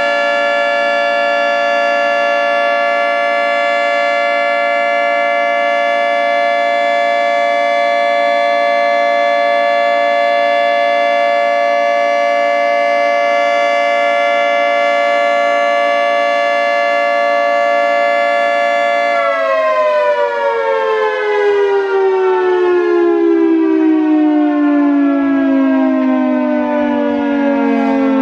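Federal Signal 3T22 three-tone outdoor warning siren holding a steady chord on its alert signal. About two-thirds of the way through, the pitch starts to fall steadily as the siren winds down at the end of its cycle.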